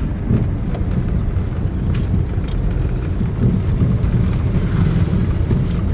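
Steady low rumble of engine and road noise heard inside the cabin of a Maruti Suzuki SX4 car driving along a road.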